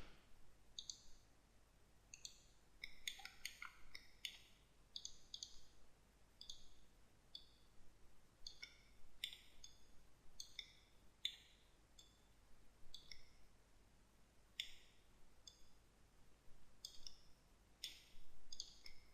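Faint computer mouse clicks, irregular and often in quick pairs or short clusters, as the software is operated.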